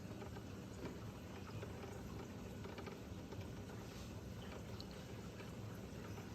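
Kalkwasser powder being added to a DIY kalk reactor: faint pouring and scattered light ticks over the steady low hum of the magnetic stirrer mixing the water.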